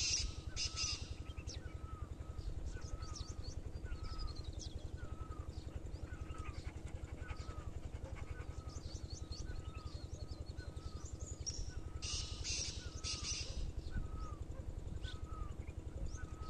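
Wild birds calling outdoors: one bird repeats a short, falling note about once a second, with scattered higher chirps around it. About twelve seconds in comes a louder cluster of harsh calls, crow-like caws.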